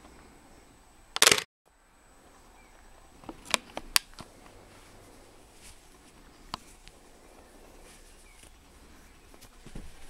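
Handling noise on the camera's microphone: a loud rustling knock about a second in that cuts to a brief dropout, then a few sharp taps and clicks.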